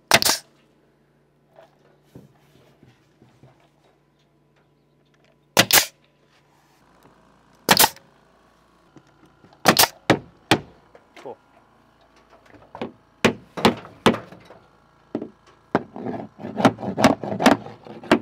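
Pneumatic coil nailer firing nails into LP SmartSide soffit panels, single sharp shots a few seconds apart, the gun set to leave each nail slightly proud. Near the end a quick run of hammer blows drives the nail heads flush.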